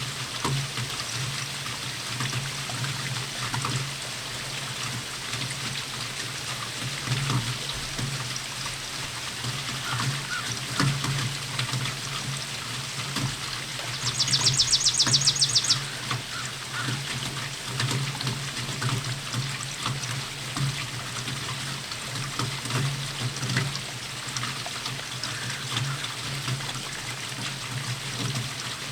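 Steady rainfall with water pouring and trickling. About halfway through comes a brief, rapid, high-pitched trill.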